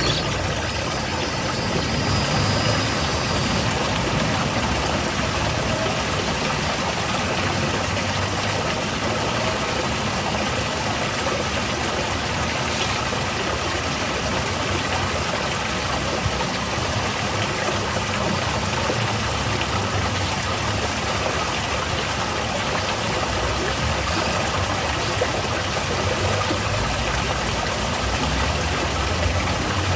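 Garden waterfall: water falling and splashing steadily, an even rushing noise.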